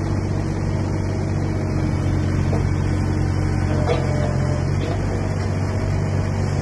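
JCB 8026 CTS mini excavator's diesel engine running steadily with a low hum while the boom and bucket are worked, with a couple of faint clicks about midway.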